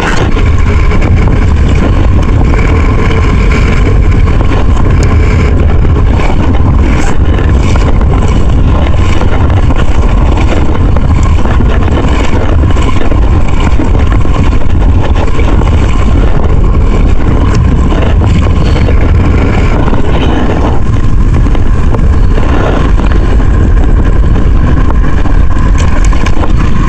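Strong wind blowing across the microphone: a loud, steady buffeting rumble.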